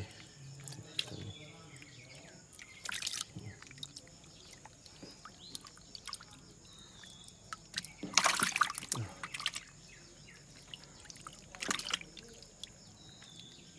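Water splashing and trickling in a few short bursts, the loudest about eight seconds in, as a fishing net is hauled from the river.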